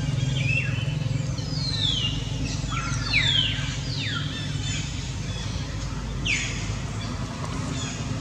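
Birds calling: a handful of quick, high whistles that sweep downward, most of them bunched together near the start and one more a few seconds later, over a steady low hum.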